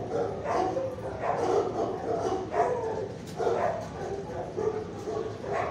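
Kennel dogs barking and yipping, one call after another with no pauses.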